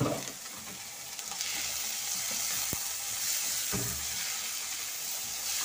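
Diced onion and tomato sizzling in hot oil with fried salami in a pot while being stirred with a slotted spoon. The sizzle gets louder about a second and a half in, and the spoon knocks against the pot a couple of times.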